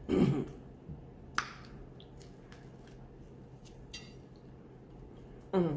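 Close-up eating sounds: chewing, with small wet mouth sounds and a sharp click about a second and a half in. A short vocal sound comes at the start and another near the end.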